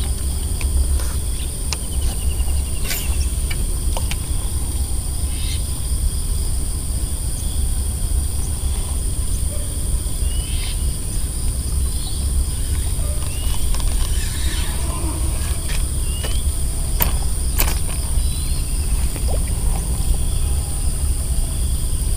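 Outdoor ambience: an uneven low rumble of wind on the microphone under a steady high-pitched insect drone. Short rising bird chirps and a few sharp clicks break in here and there.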